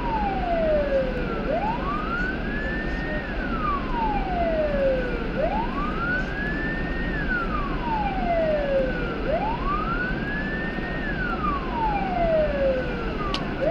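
Police car siren in a slow wail, its pitch rising quickly and then falling more slowly, one cycle about every four seconds.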